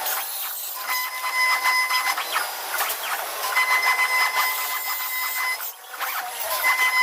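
CNC wood router running and cutting wood: a steady hiss of cutting with a high-pitched machine whine that comes in stretches of about two seconds, three times, and a brief drop in level shortly before the end.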